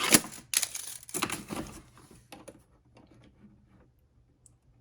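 Tape measure being pulled out: a sharp click, then two short rasping pulls of the steel blade being drawn from the case, followed by a few faint clicks.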